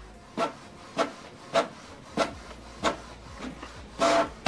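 Canon PIXMA TS7650i inkjet printer printing a page: a short mechanical sound repeats about every 0.6 s, then a longer, louder whirr comes near the end as the page feeds out.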